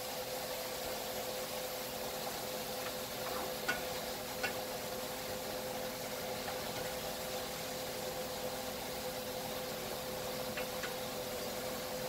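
Ground beef sizzling as it browns in a frying pan on a gas burner, a steady hiss over a steady hum, with a few light clicks of the stirring utensil against the pan about four seconds in and again near the end.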